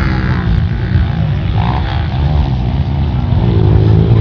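Dirt bike engine running, its note falling back as the throttle comes off at the start, then building again and getting louder near the end.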